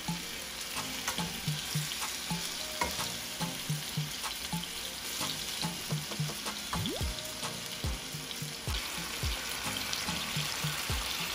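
Marinated chicken breasts sizzling steadily in hot olive oil and butter in a nonstick skillet, with scattered small pops and spatters.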